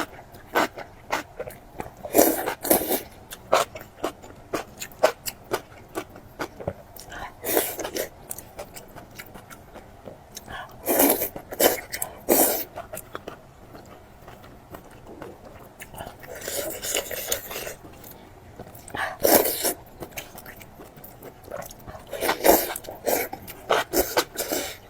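Close-miked chewing and eating sounds: wet mouth clicks and smacks, with louder clusters of crackly bites every few seconds.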